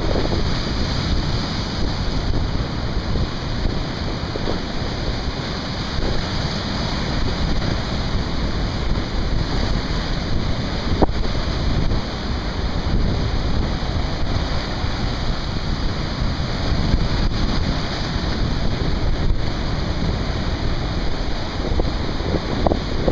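Steady wind noise on the microphone over the rush of breaking surf.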